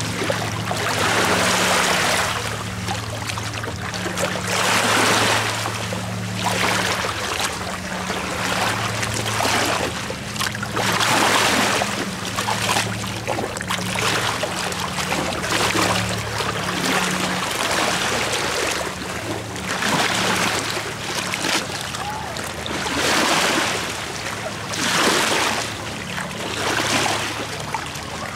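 Small lake waves lapping and washing over a stony shoreline, swelling and falling in surges every second or two. A steady low hum runs underneath.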